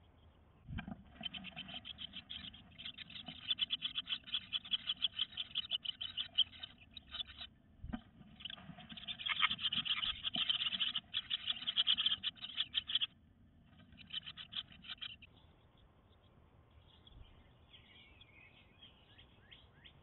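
House wren nestlings begging in the nest box: long runs of rapid, raspy calls as an adult wren comes in to feed them, breaking off about three-quarters of the way through. Faint birdsong follows near the end.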